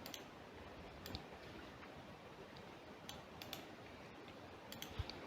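A few faint, scattered clicks of a computer mouse and keyboard over quiet room hiss.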